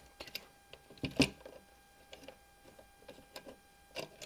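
Small clicks and taps of parts being handled and fitted while a Daisy 188 BB pistol is reassembled by hand, with a sharper knock about a second in and another near the end.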